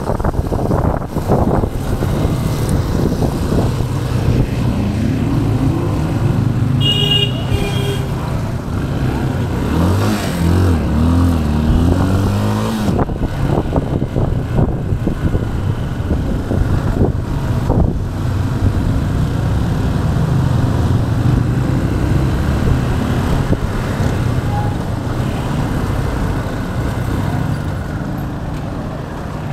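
Motorcycle engine running steadily while riding through city traffic. A vehicle horn toots briefly about seven seconds in, and an engine's pitch rises and falls for a few seconds around ten seconds in.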